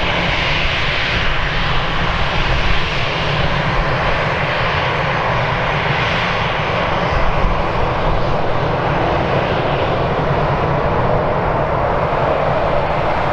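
Aircraft engine noise, loud and steady throughout, with no clear rise or fall.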